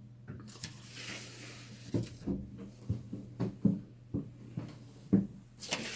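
Footsteps climbing wooden stairs: a string of uneven dull thuds, with some rustling of clothing.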